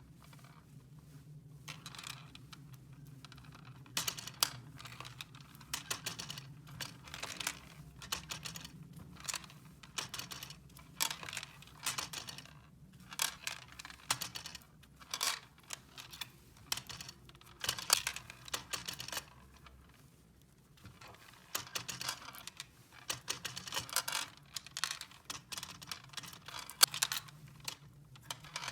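Small plastic toy pieces being handled: irregular clicks and taps in quick clusters, with some crinkling, pausing briefly about two-thirds of the way through.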